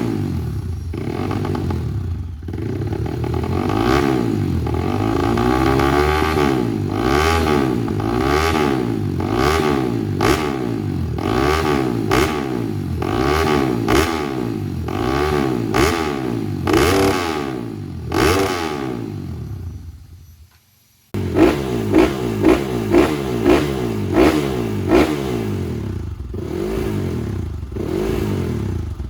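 Four-stroke trail motorcycle engine revved in repeated throttle blips, about one a second, the pitch rising and falling each time. About two-thirds of the way through the sound drops away and cuts to an engine revved in short, sharper, louder blips.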